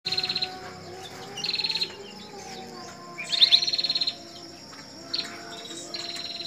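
Flamboyan songbird singing in its cage: short, rapid, high trilled phrases, four bursts a second or two apart, the loudest about three seconds in.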